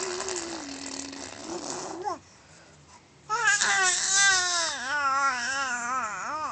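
A baby's voice: a breathy, falling fussing sound for about two seconds, then after a short pause a loud, wavering cry.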